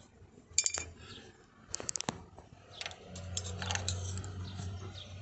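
Small metal wheel-hub parts clinking and tapping against each other as they are handled, in scattered sharp clicks, with a low hum joining in about three seconds in.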